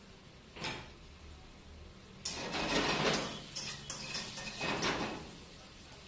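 A short clatter, then vegetables hitting a hot wok and sizzling loudly for about three seconds, with a metal spatula scraping and knocking against the pan.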